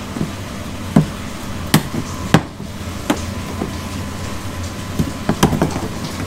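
Sharp clicks and knocks of a hand tool working the fasteners on a plastic wheel well liner: about seven irregular snaps as the Torx screws and plastic push pins are worked loose, over a steady background hiss.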